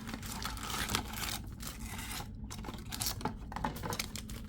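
Hands scratching, scraping and tearing at the plastic wrapping of a sealed trading-card box, in an irregular run of small scrapes and crackles.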